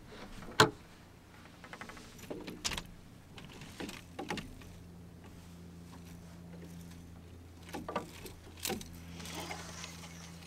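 Tackle being rummaged through to dig out a jerkbait: clicks, knocks and rattles of lures and plastic tackle boxes, with one sharp knock about half a second in. A low steady hum sits underneath from about halfway through.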